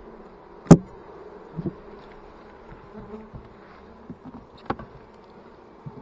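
A mass of honey bees buzzing over an open hive in a steady hum. A sharp knock a little under a second in, the loudest sound, and a few softer knocks later come from the wooden hive frames and boxes being handled.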